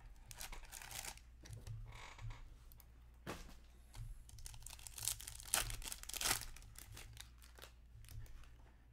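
Hockey card box being opened and its sealed pack wrapper torn open and crinkled, in several short crackling bursts, loudest a little past the middle.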